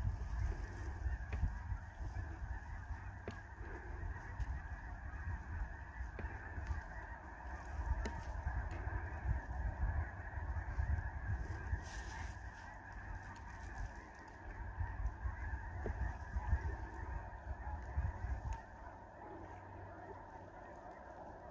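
A large flock of snow geese honking in a dense, continuous chorus, with a low rumble underneath that drops away near the end.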